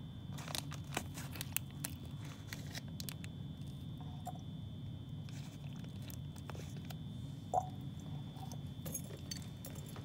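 Faint scattered crinkles and clicks of a plastic zip-top bag being handled, over a low steady room hum and a faint high steady whine.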